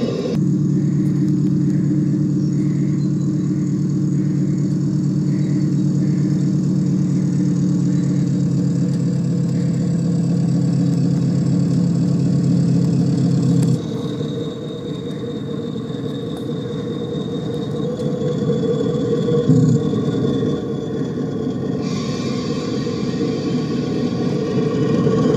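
Miniature-railway model of a BR Class 20 diesel locomotive running along the track with a steady engine drone and faint regular ticking in the first half. The tone drops and changes about halfway through, then shifts again near the end.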